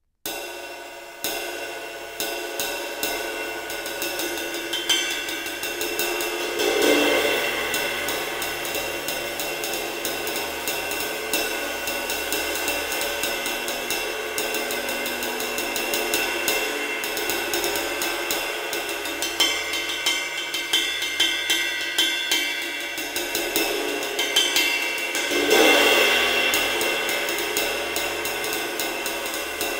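19¾-inch Traditional Sol ride cymbal, 2013 g, with a single steel rivet, played with a wooden drumstick: a steady run of stick strokes on the bow over a long shimmering wash with the rivet's sizzle. Two louder strokes swell the wash, about seven seconds in and again about twenty-five seconds in.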